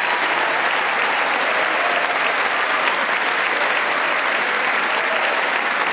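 A large audience applauding steadily, dense even clapping with no letup.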